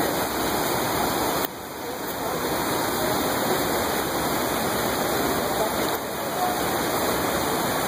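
Steady rush of a small waterfall spilling over shale ledges into a rock plunge pool. The loudness drops suddenly about a second and a half in, then builds back up.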